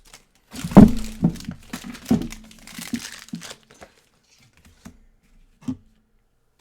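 Crinkling of plastic and foil wrappers from opened card packs being handled and crumpled, with a thump about a second in. Then a few scattered clicks.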